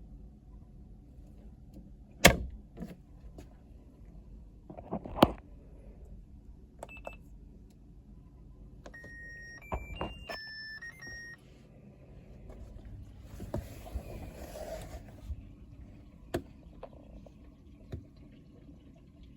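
Electronic beeps from a Hitachi drum washing machine's control panel: a short tune of pure tones stepping up and down in pitch as the spin course is set and started. It comes after a few sharp clicks and knocks and is followed by a soft hiss and more single clicks.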